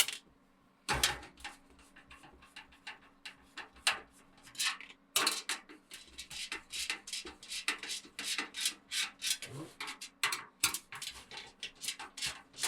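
Irregular small clicks, taps and rubbing of hand tools and hands working on a metal PC case as a case fan is taken out of it. A faint steady low hum runs underneath.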